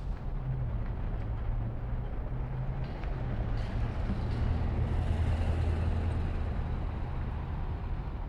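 A diesel engine running with a steady low rumble that grows louder about halfway through, with a few light clicks a few seconds in.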